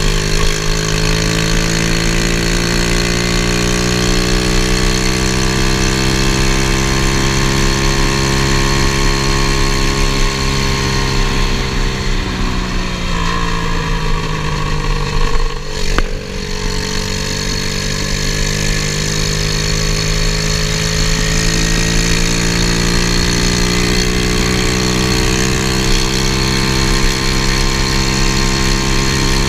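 The 125cc pit bike engine in a Honda ATC70 mini three-wheeler running under way. Its note falls about halfway through as the rider eases off, and there is a single sharp click. The note then climbs again as the trike picks up speed, with wind rumbling on the microphone throughout.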